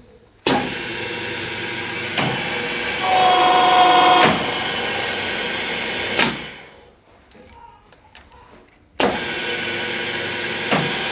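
Key-cutting machine running: it starts abruptly, grows louder with a steady whine for about a second, stops with a click and winds down, then after a few light clicks starts again.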